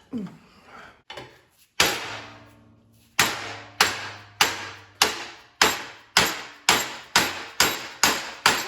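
Hammer striking sheet metal: a few separate blows, then a steady run of about a dozen strikes, roughly two a second, each with a short metallic ring.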